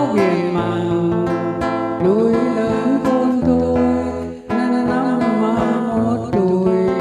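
A man singing a slow song into a microphone, holding long wavering notes, accompanied by a plucked acoustic guitar.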